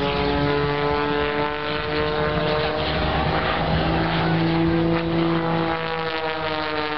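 Single-engine aerobatic propeller plane's piston engine and propeller droning through manoeuvres, the pitch sliding down and then back up about halfway through.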